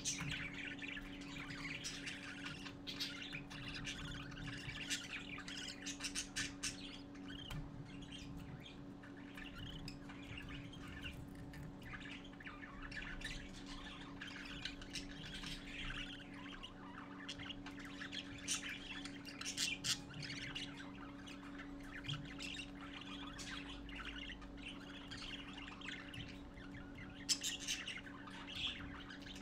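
Budgerigar chicks chirping and squawking almost without pause, a busy mix of short high cheeps and raspy calls, over a steady low hum.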